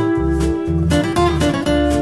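Background music with strummed guitar over a steady bass line pulsing about twice a second.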